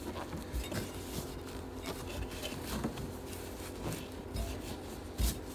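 Handling noise: a glove and fabric rubbing and scraping as a compression tester hose is threaded by hand into a spark plug hole, with scattered small clicks and one short thump near the end.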